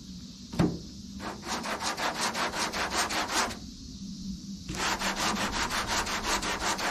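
Hand sanding block with #80-grit paper scraping back and forth over body filler on a car's engine lid, at about four or five quick strokes a second, to flatten the putty. The strokes come in two runs with a pause of about a second between them. A single sharp knock comes about half a second in.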